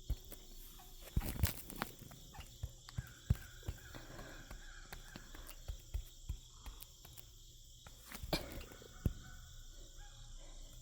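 A steady high drone of insects, with scattered sharp knocks and clicks, clustered about a second in, around three seconds in and again near eight to nine seconds.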